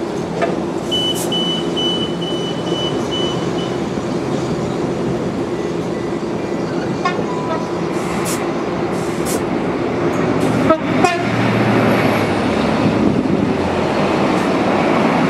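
Diesel train running into the station with a steady engine drone. A run of short high beeps comes about a second in, and two sharp knocks near eleven seconds.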